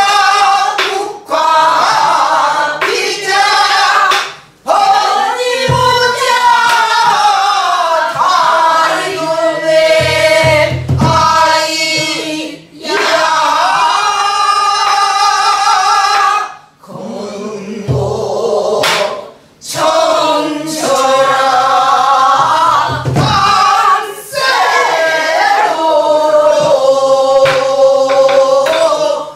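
Voices singing a Namdo folk song together in the Korean traditional style, with long wavering held notes in phrases separated by short breaks. Now and then a low stroke on a buk barrel drum.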